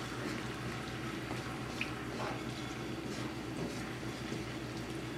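Ground beef in beef broth simmering in a frying pan, a steady bubbling sizzle as the liquid reduces, with a wooden spoon stirring through the mixture.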